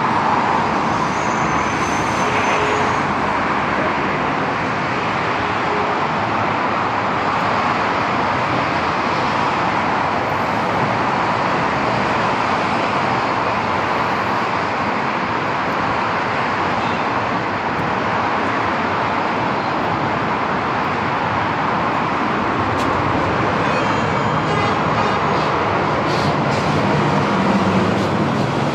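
Steady road traffic: passing cars and buses, a continuous rush of tyres and engines. Near the end a heavier vehicle's engine grows louder.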